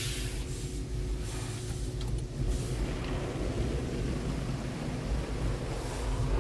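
Automatic car wash tunnel heard from inside the car: a steady low rumble of the wash equipment as foam and water sheet over the windshield. A high spray hiss fades away right at the start.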